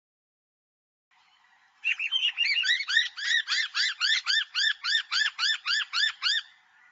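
Noisy miner calling a rapid series of repeated notes, about four a second, each rising and then falling in pitch. The series starts after about a second of silence, begins ragged and then settles into an even rhythm, and stops shortly before the end.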